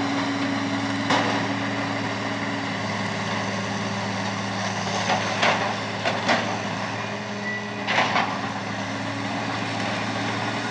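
Heavy diesel machinery running steadily during building demolition, with several sharp bangs and knocks: one about a second in and a cluster of four or five between about five and eight seconds.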